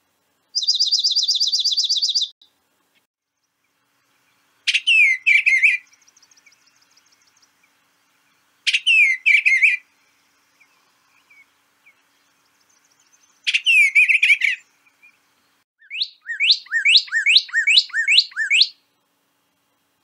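Recorded bird songs one after another. First comes a dark-eyed junco's even trill, lasting about two seconds. Then an eastern bluebird sings a short warbled phrase three times, and near the end a northern cardinal gives a run of quick slurred whistles.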